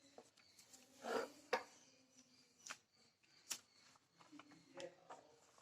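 Faint rustling and a few soft clicks of a paper instruction manual being handled and its pages turned, in scattered short touches with the largest rustle about a second in.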